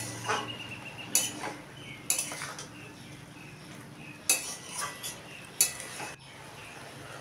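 Flat metal spatula scraping and clinking against a metal kadai while a thick mix of banana flower, potato, prawns and coconut is stirred, in about ten irregular strokes. The stirring stops abruptly about six seconds in.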